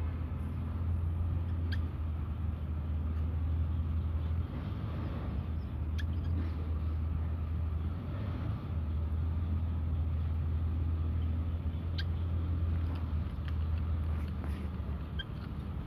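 Steady low hum, with a few faint sharp clicks that fit cats crunching dry kibble.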